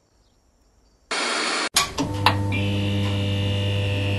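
Near silence, then about a second in a short burst of TV-style static hiss. After a brief gap a steady electrical mains hum and buzz sets in with a couple of sharp crackles, and a higher whine joins about halfway through, like a neon sign buzzing.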